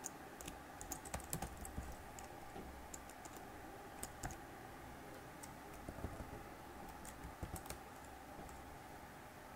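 Computer keyboard typing: faint key clicks in a few short, irregular bursts with pauses between.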